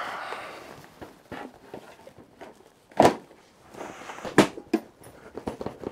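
Camping gear being handled and packed: a brief rustle, then sharp clicks and knocks, the loudest about three seconds in and another about a second and a half later.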